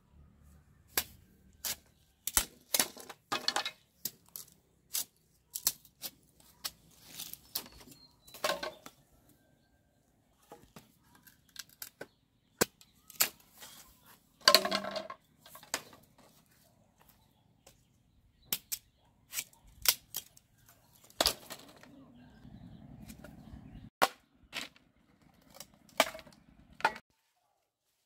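Curved hooked knife chopping and splitting bamboo: irregular sharp cracks and knocks of the blade biting into the cane, some much louder than others.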